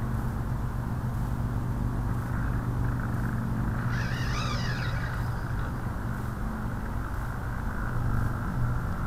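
Steady low hum and rumble of wind and lake water rushing past a radio-controlled model sailboat, picked up by a camera mounted on its deck. About four seconds in, a short warbling high sound rises and falls briefly over it.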